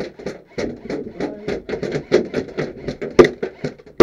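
Airsoft replicas firing in rapid succession, about seven sharp shots a second, with one much louder crack a little past three seconds in.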